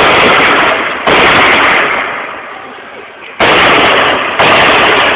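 Four loud gunshots in two pairs, each a sudden crack followed by a long echoing tail of about a second.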